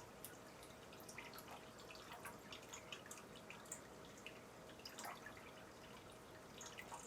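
Faint water in an aquarium dripping and trickling, with many small irregular plinks over a soft hiss and a faint steady hum.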